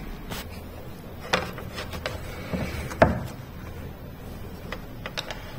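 Scattered light clicks and knocks, the loudest about three seconds in, from hands handling an Amazon Echo Show's power adapter and cable while plugging the device in to charge.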